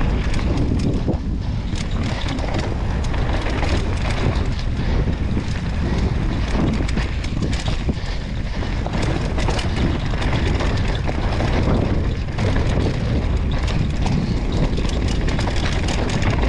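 Mountain bike riding downhill on a dirt trail, heard through an action camera's microphone: heavy wind buffeting the mic over rolling tyre noise, with frequent short rattles and clatters from the bike over rough ground.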